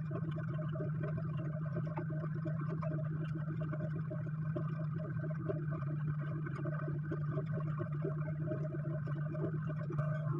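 A steady low hum of a running machine, unchanging, with a faint irregular flutter over it.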